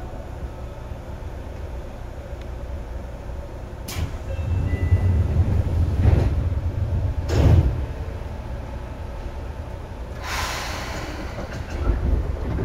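Seibu 2000 series electric train standing at a station: the sliding doors work, with sharp clicks about four seconds in and again about seven seconds in as the low rumble of the car swells, then a short hiss of compressed air about ten seconds in.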